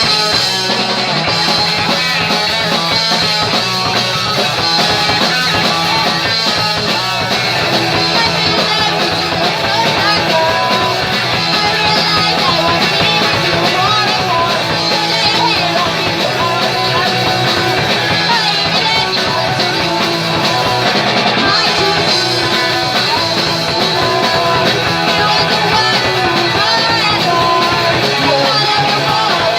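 A punk rock band playing a song live, with electric guitars, loud and without a break.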